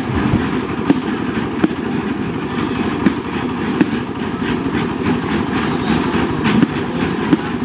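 A small engine running steadily, with irregular clicks and knocks over it.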